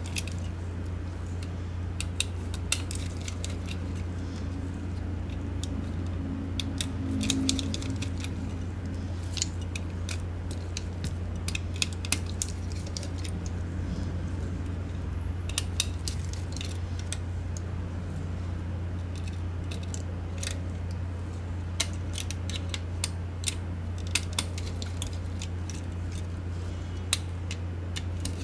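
Small irregular clicks and clinks of a precision screwdriver, tiny screws and the plastic shell of a Logitech G604 wireless mouse being unscrewed and taken apart, over a steady low hum.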